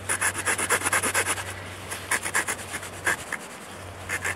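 Knife point scraping a groove around a wooden stick. A fast run of short scraping strokes at first, then slower, scattered strokes.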